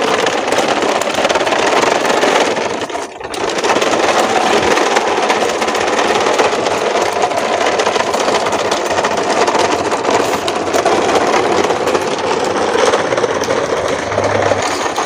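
Plastic toy dump trucks rolling over rough concrete: a steady, loud rattling rumble of wheels and bodies, with a brief dip about three seconds in.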